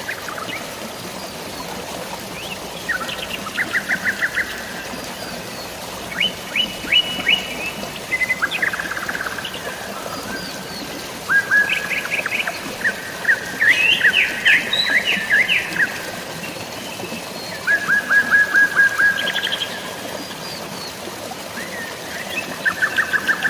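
Songbirds singing in bursts, about seven quick trilled phrases of rapid repeated chirps, each one to two seconds long, over a steady rush of flowing water.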